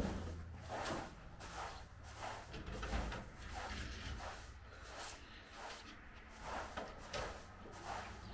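Straw broom sweeping a carpeted floor in quick repeated strokes, a brushing swish about every half second.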